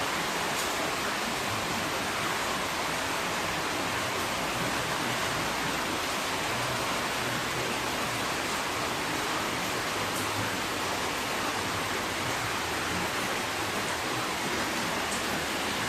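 Heavy rain pouring steadily, an even hiss of falling water.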